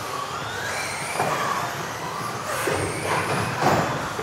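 Several radio-controlled off-road racing cars running laps together, their motors whining and sliding up and down in pitch as they speed up and slow down.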